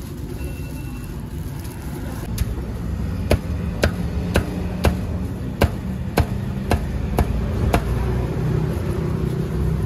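Cleaver chopping grilled chicken on a thick round wooden chopping block: sharp single chops at about two a second, starting a couple of seconds in, over a steady low background rumble.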